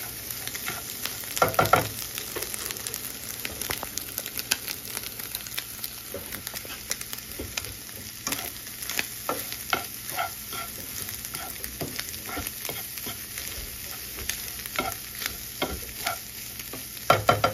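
Scrambled eggs with ham sizzling in a frying pan, with a spatula scraping and stirring through them in short strokes. Two louder bouts of scraping come about a second and a half in and near the end.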